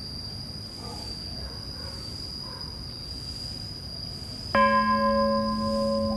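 A Tibetan temple bell struck once about four and a half seconds in, ringing on with a low hum and several higher overtones, one of them wavering slowly, over a steady thin high-pitched tone.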